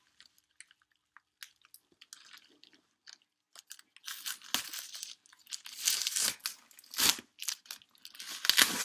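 Thick cardboard box being pried and torn open by hand: a few small clicks and rustles, then from about four seconds in a run of loud crunching tears, loudest near the end.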